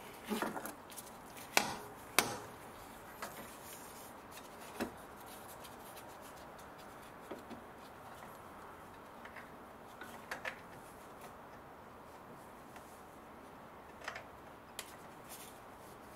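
Scattered light clicks and knocks as a multi-rib serpentine belt is pushed by hand onto the engine's pulleys, the sharpest ones in the first couple of seconds, then only a few faint taps and rubs.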